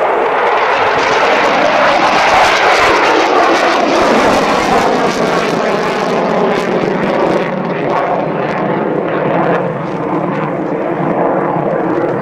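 Loud jet noise from an F-15 Eagle's twin turbofan engines as the jet climbs steeply away. The noise peaks two or three seconds in, then its high hiss fades from about seven seconds in as the aircraft recedes.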